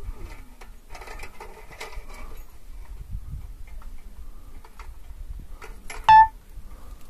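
Scattered clicks and knocks over a low rumble of wind and handling, from a climber moving over rock. About six seconds in there is a single brief, loud, high-pitched squeak.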